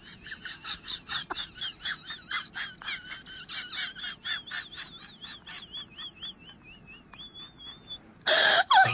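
Small bird chirping over and over in short high calls, about three a second, with a warbling trill in the middle. A much louder sound cuts in near the end.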